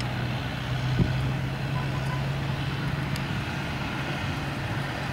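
A steady low mechanical hum over outdoor background noise, with a faint knock about a second in.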